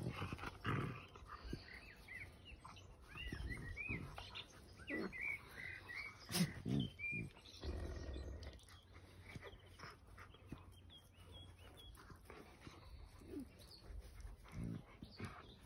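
Central Asian Shepherd puppies play-fighting: scattered short high squeaks and yelps, most of them in the middle stretch, a few low grunts, and scuffling on dirt. A sharp knock about six seconds in.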